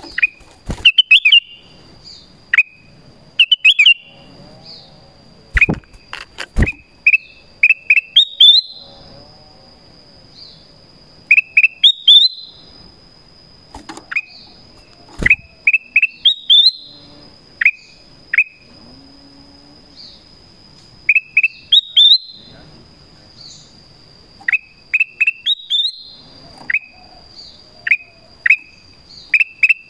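Black-crested bulbul calling: short, sharp whistled notes that bend in pitch, given in quick groups of two to four and repeated every couple of seconds, as a call to wild bulbuls. Two sharp knocks come about six seconds in.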